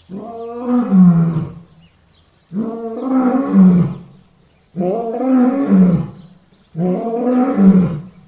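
Lion roaring: four long calls, about two seconds apart, each rising and then falling in pitch.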